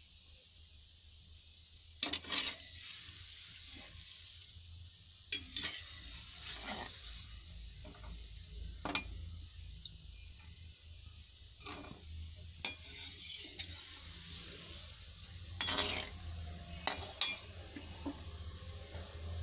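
Mawa dough balls deep-frying in oil with a steady sizzle. A perforated metal spoon turns them, knocking and scraping against the pan every second or two.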